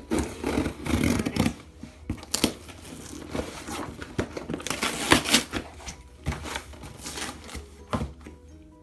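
Plastic packaging being torn open and crinkled by hand, irregular rustling with sharp crackles and rips.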